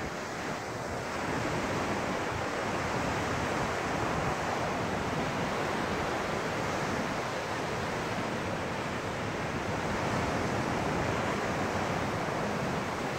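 Ocean surf washing up a sandy beach: a steady, even rush of waves with no distinct breaks standing out.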